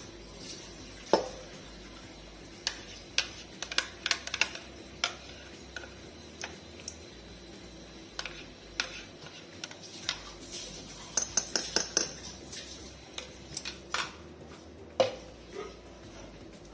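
Metal spoon scraping and clinking against a blender cup and a glass jar as thick paste is scooped out: irregular sharp clinks and knocks, a quick run of them about eleven seconds in, and two louder knocks, one about a second in and one about fifteen seconds in.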